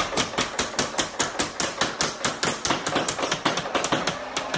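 Battery-powered Nerf N-Strike Elite Hyperfire blaster firing foam darts in a rapid continuous stream, about seven to eight clacking shots a second, stopping just before the end.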